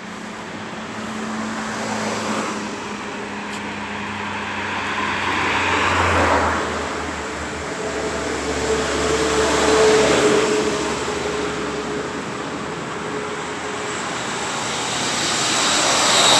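Road traffic: vehicles pass one after another, each swelling and fading, with the loudest pass about ten seconds in.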